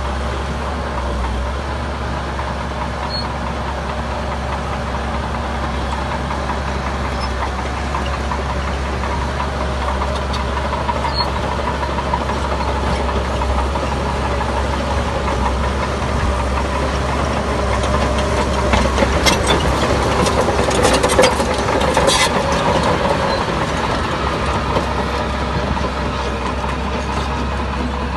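Diesel engine of heavy earthmoving machinery running steadily. About two-thirds of the way through there is a short run of sharp clattering knocks.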